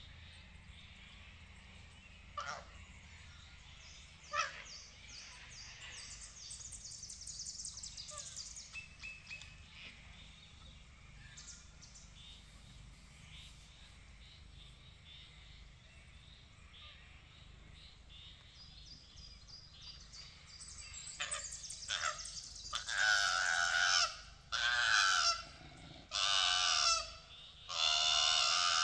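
Koala screaming from high in a gum tree: a run of loud, wavering screeches, each about a second long, beginning a little past twenty seconds in. Earlier, fainter bird chirping in quick high notes.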